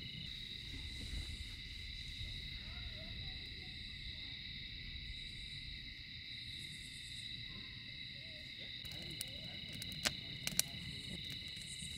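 Steady night chorus of crickets, with a few sharp pops from a crackling wood campfire about ten seconds in.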